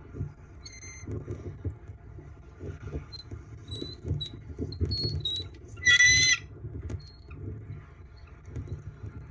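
Bald eagles at the nest right against the microphone: steady low rustling and knocking of feathers and nest material as they feed, with faint short high peeps, and one loud, high, ringing eagle call about six seconds in that lasts about half a second.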